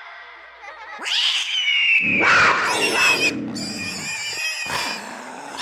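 A loud, drawn-out cat-like screech that starts about a second in, turns rough and growling in the middle, then trails off in wavering cries.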